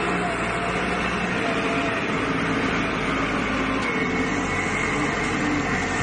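Diesel engine of a wheel-type backhoe loader running steadily under working load, a dense continuous engine and machinery noise with a faint whine in it.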